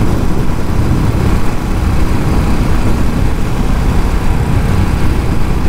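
Motorcycle on the move: a steady, loud engine drone mixed with wind rumble on the rider's microphone.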